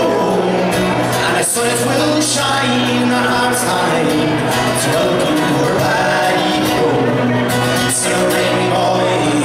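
Live Irish folk song played on acoustic guitar and accordion, with singing.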